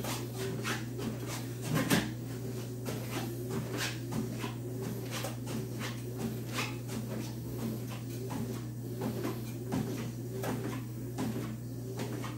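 Motorised treadmill running with a steady hum and a wavering whine, and the regular thud of footsteps on the moving belt, about one and a half a second, from someone walking backwards.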